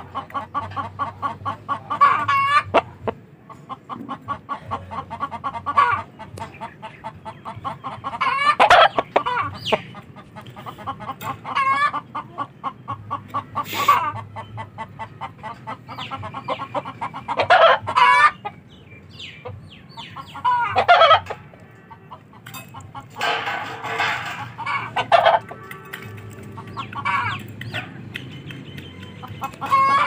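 A flock of domestic chickens clucking in rapid runs, with louder, longer calls every few seconds.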